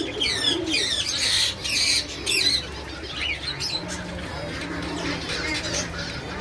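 Caged birds chirping and calling: a quick run of sweeping chirps and a couple of harsh rasping calls in the first two and a half seconds, then fainter scattered chirps.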